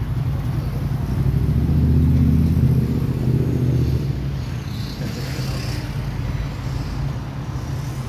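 A motor vehicle's engine running with a steady low hum, growing louder about a second or two in and then easing back.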